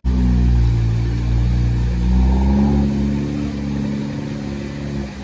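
A sports car's engine running under light throttle as the car pulls away at low speed, its note rising a little about two seconds in and then easing off.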